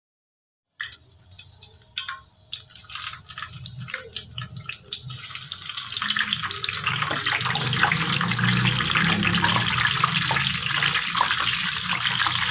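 Tap water running into a sink, with scattered splashes and knocks at first; the flow gets louder and steadier about six seconds in.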